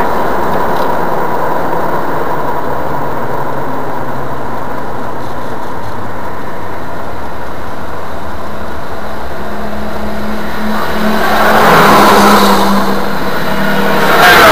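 Steady road and engine noise heard from inside a moving car's cabin on a highway. Near the end the noise swells twice, the second and louder time as an oncoming timber lorry goes past.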